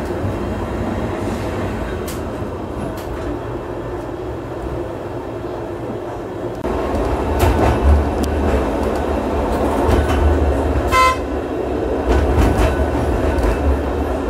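Vintage electric tram running along the track, heard from inside the passenger saloon: a steady rumble of motors and wheels that grows louder about seven seconds in as it picks up speed. About eleven seconds in, a short high warning tone sounds once.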